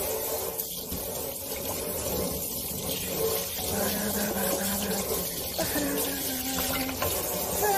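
Kitchen faucet running steadily through its spray head into the sink.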